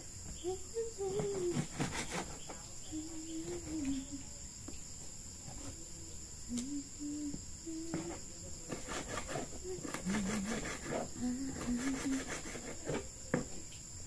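Kitchen knife slicing a red bell pepper on a plastic cutting board: irregular taps of the blade on the board, busiest in the second half, over a steady chorus of crickets.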